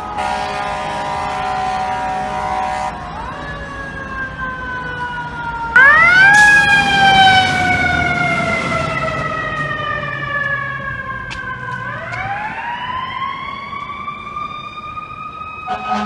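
Fire truck air horns sounding a steady multi-note chord for about three seconds. Then a fire truck's mechanical siren winds up quickly and falls slowly in pitch as it coasts down. It becomes suddenly much louder about six seconds in as the truck passes close, and winds up again near the end.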